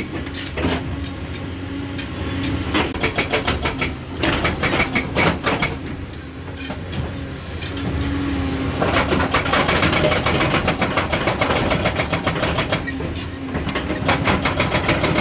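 Excavator-mounted hydraulic breaker hammering in several bursts of rapid, evenly spaced blows, with gaps between them, over the steady running of the excavator's diesel engine.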